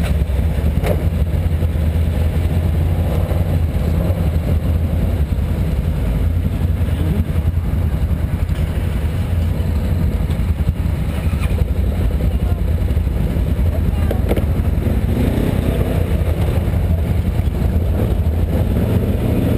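Can-Am Outlander 1000 ATV's V-twin engine idling steadily, heard up close from the machine itself.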